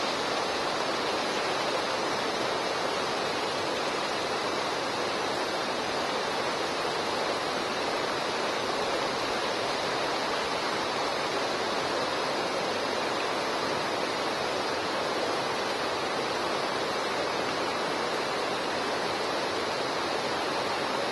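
Steady rushing of a river current running through rapids, an even, unbroken water noise.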